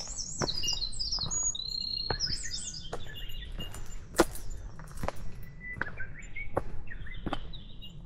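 A songbird singing a fast, varied warbling song of high chirps and short whistles, over a hiker's footsteps on a stony dirt trail, a little more than one step a second; one knock about halfway is the loudest sound.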